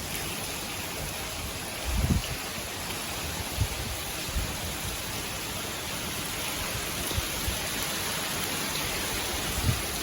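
Steady rain from a typhoon downpour, with a few short low thumps on the microphone, the loudest about two seconds in and another near the end.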